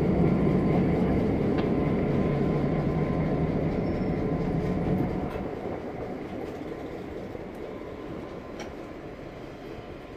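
Diesel-hauled heritage train in a slow switching move, the locomotive and cars rolling past with a low rumble of engine and wheels. The rumble drops off about five seconds in as the train eases down for its stop, with a few faint clicks from the wheels and rails.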